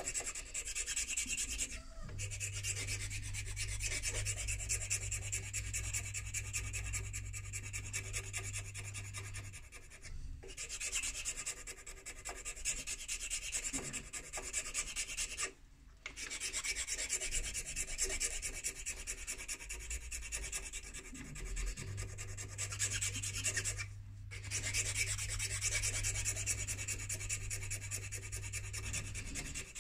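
Hand filing a vulcanite pipe stem with a half-smooth (second-cut) file: rapid, steady rasping strokes with brief pauses, the stem held in a lathe chuck turned by hand. A low steady hum runs underneath for two stretches of several seconds.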